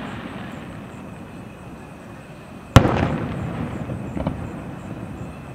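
Aerial fireworks shells bursting. One sharp, loud boom comes about halfway through, with a long rumbling tail that fades out, and a few smaller pops follow a little later.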